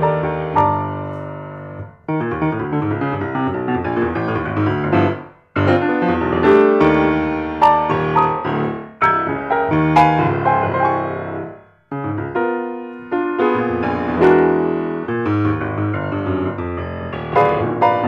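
Grand piano played solo, chords and runs of struck notes. Three times, about 2, 5½ and 12 seconds in, the notes die away briefly before the playing starts again.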